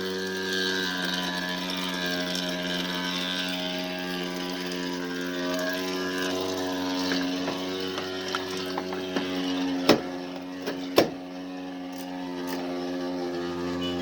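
Electrolux washing machine running with a steady droning hum, still going even with power to the house shut off at the main. Two sharp knocks come about ten and eleven seconds in.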